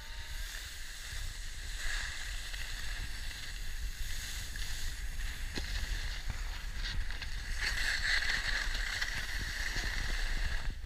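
Snowboard edges scraping and hissing over packed piste snow as riders slide downhill, louder for a few seconds near the end, with a low steady rumble underneath.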